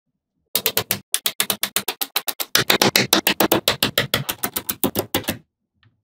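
Small magnetic balls clicking against one another in a rapid run, about eight sharp clicks a second, with a short break about a second in, then stopping suddenly.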